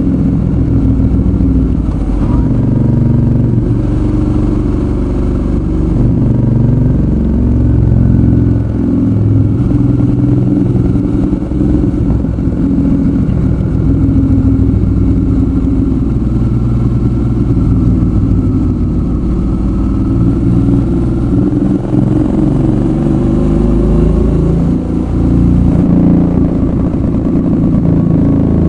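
Suzuki V-Strom 650's V-twin engine running on the move, its pitch rising and falling with throttle and gear changes.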